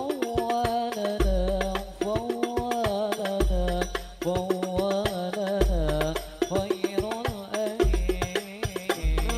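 A rebana frame-drum ensemble playing an Arabic sholawat: a male voice sings a drawn-out, wavering line into a microphone over a quick, steady pattern of frame-drum strikes. Deep bass booms come about every two seconds.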